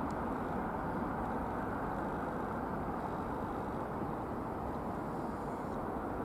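Steady rolling rumble of a freight train passing through the station at speed, wheels running on the rails without change in level.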